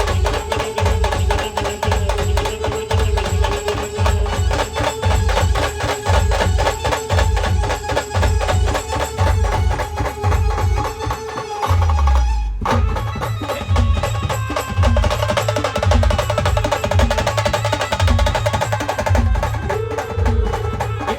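A band playing a dance song: fast, heavy drumming with a held melody over it, breaking off for an instant about halfway through before the beat comes back in.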